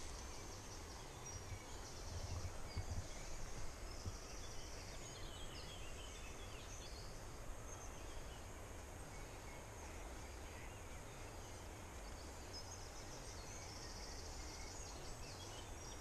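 Faint outdoor ambience with small birds chirping and calling on and off, over a steady low background hiss.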